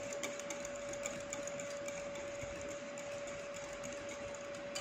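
Wire whisk beating cream and condensed milk in a glass bowl: a steady run of quick soft clicks and swishes as the wires scrape and tap the glass, over a steady thin hum.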